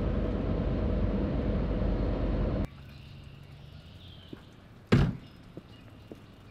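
Steady road and engine noise inside a car's cabin while driving, cut off suddenly after almost three seconds. Quiet outdoor background follows, with one sharp bang about five seconds in as a house door shuts.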